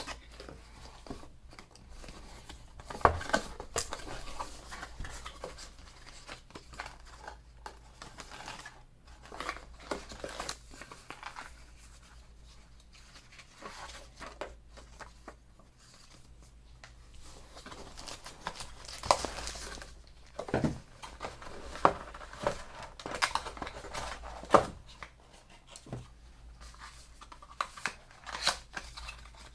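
Packaging being handled and unwrapped: irregular crinkling, rustling and tearing, with scattered sharp clicks and knocks.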